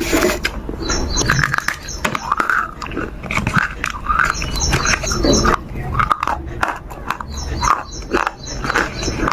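A pet animal licking and chewing at food with wet smacking clicks, while a bird sings short runs of quick high chirps several times in the background.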